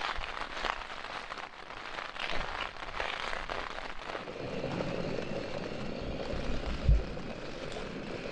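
Rain pattering on the fabric of a small tent. About four seconds in, a steady rushing noise joins it, and a single low thump comes near the end.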